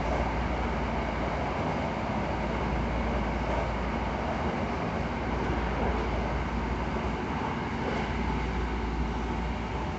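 Hankyu 9000 series electric train running at speed, heard from inside the passenger car: a steady rumble of wheels on the rails and car noise.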